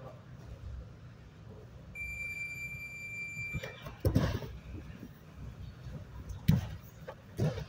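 A single steady, high-pitched electronic beep lasting under two seconds, followed by a few loud thuds.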